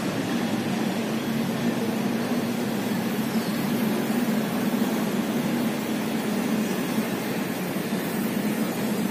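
Steady background hum and hiss of a large exhibit hall, unchanging, with no distinct events.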